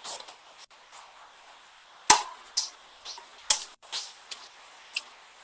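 Eating sounds: two sharp clicks about a second and a half apart, with several shorter, softer noises around and after them.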